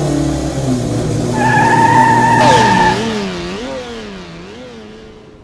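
Car engine running, then a high tyre squeal of about a second and a half. After that the engine note drops and wavers up and down as the car drives away, fading out.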